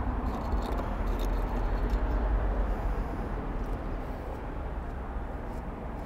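Wet Satanite refractory mortar being smeared by gloved hands onto a soft fire brick, with a few faint clicks, over a steady low rumble.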